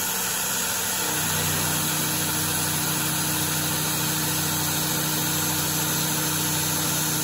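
Milling machine spindle driving a five-flute solid carbide end mill at 1700 RPM through a metal part under coolant spray, making a steady cutting drone over a constant hiss. About a second in, a steady low hum joins and holds as the tool settles into the cut.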